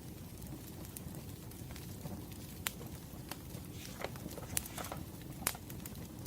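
Campfire burning with a steady low rumble and sharp crackling pops, four of them standing out, the loudest near the end.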